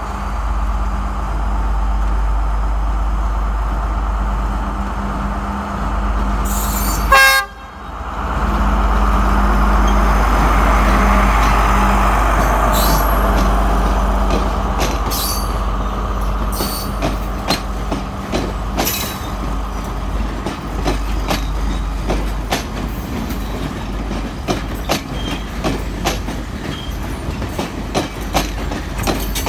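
Sri Lanka Railways S14 and S8 diesel multiple unit running past: a steady diesel engine hum as it approaches, and a short horn toot about seven seconds in. The power car's engine swells as it goes by, then the carriages' wheels clack over the rail joints in the second half.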